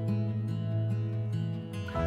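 Background music with held notes over a steady low bass line.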